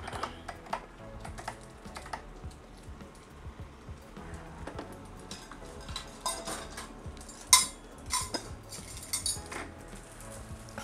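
Irregular clicks, knocks and light metallic clinks of a case fan being handled and fitted into the top of a PC case; the sharpest click comes about seven and a half seconds in.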